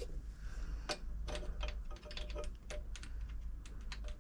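Irregular light clicks and taps of hands and tools working on a sewing machine's metal parts, over a steady low hum.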